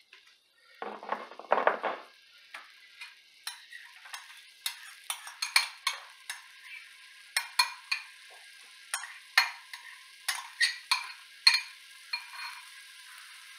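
Diced onion being scraped from a small bowl into hot oil in a stainless steel pan: sharp, irregular clinks and scrapes of a utensil against the bowl and pan over a sizzle that grows steadier toward the end.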